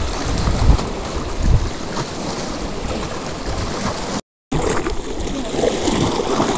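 Wind buffeting the microphone over small waves lapping at a lakeshore, gusting hardest in the first couple of seconds. The sound drops out completely for a moment just after four seconds in, then the wind and water resume.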